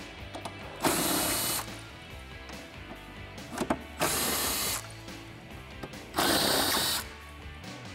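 Cordless driver with a socket on an extension spinning out the 13 mm bolts that hold a tire carrier to a tailgate, in three short bursts about a second, four seconds and six seconds in. Background music plays underneath.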